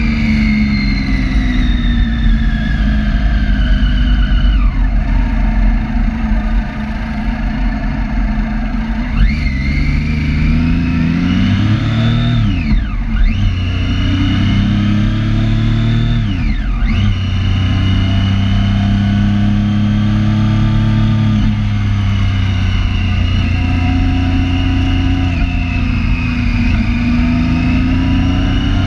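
Triumph Street Triple 675's inline-three engine running under way. Its pitch falls and rises several times as the revs change, with two quick drops and recoveries in the middle.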